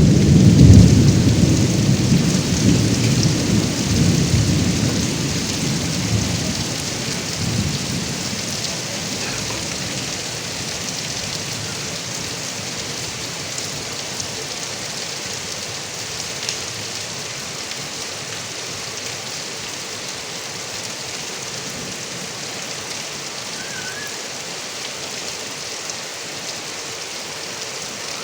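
Heavy rain falling and running off a roof gutter spout, a steady hiss, with a low rumble of thunder at the start that dies away over the first several seconds.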